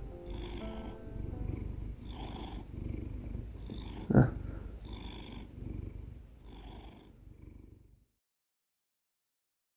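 Korean shorthair mackerel tabby cat purring close up: a low steady rumble that swells and eases about once a second with each breath. A brief, louder sharp sound comes about four seconds in. The purring fades out near the end.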